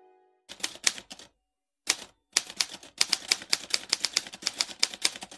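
Typewriter keys clacking as a sound effect for on-screen text being typed out. A few keystrokes come first, then a single one after a short gap, then a fast unbroken run of keystrokes.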